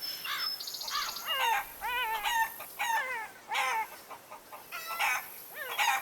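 A quick series of short animal calls, each rising and falling in pitch, about two a second, with a few brief high chirps between them.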